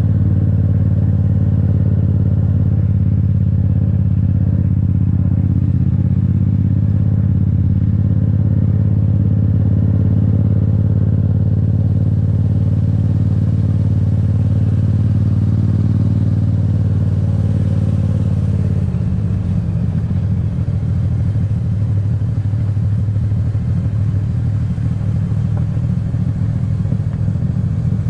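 Yamaha MT-07's parallel-twin engine running steadily under way on the move. About two-thirds of the way through, its even note turns rougher and slightly quieter.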